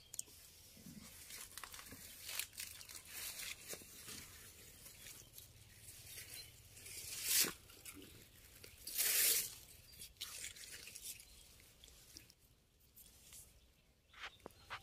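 Close rustling and crackling right at the microphone, with scattered small crackles and two louder rushes of noise about seven and nine seconds in.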